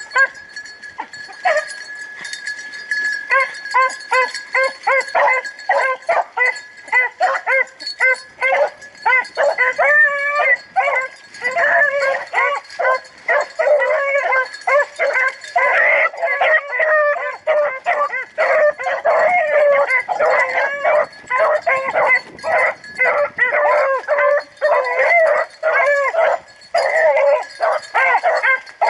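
Pack of beagle rabbit hounds baying, several voices overlapping in rapid, near-continuous barks after a sparser first few seconds. This is the hounds running a rabbit's scent trail.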